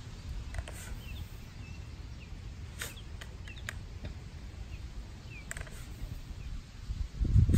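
Scattered scrapes and knocks of a shovel scooping top-dressing soil out of a garden cart and throwing it onto the grass. Small birds chirp, and a low wind rumble on the microphone gusts much louder near the end.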